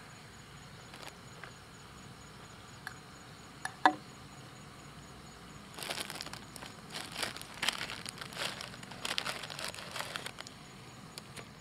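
A single sharp metal clink as a camping pot lid is set down, then a plastic instant-noodle packet crinkling and tearing in a run of bursts for about five seconds as it is torn open.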